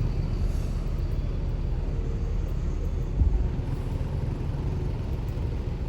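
Large vehicle engine running close by, most likely a tour bus: a steady low rumble, with a brief louder bump a little past halfway.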